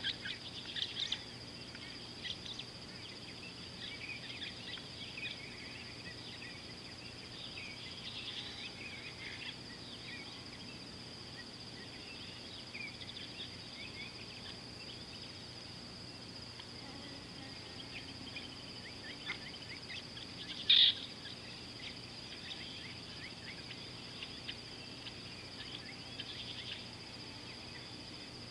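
Outdoor bush soundscape: a steady high-pitched insect drone with frequent short bird chirps and twitters, a few louder chirps at the start and one louder bird call about three quarters of the way through.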